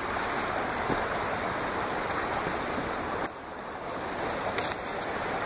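Steady rushing of a fast-flowing river over cobbles, with a single short click about three seconds in, after which the water is a little quieter.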